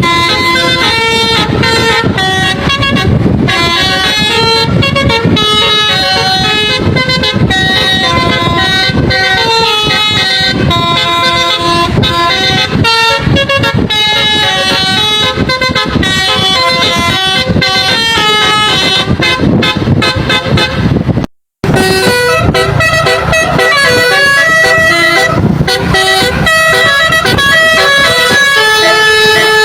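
Basuri telolet horn on a truck playing a melody of quick, stepped, high-pitched notes over low vehicle rumble. The sound breaks off for a moment about two-thirds of the way through, then the tune goes on.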